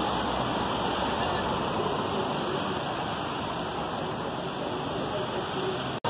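Steady rushing street and vehicle noise picked up by a phone's microphone, with no siren sounding. It breaks off for an instant near the end.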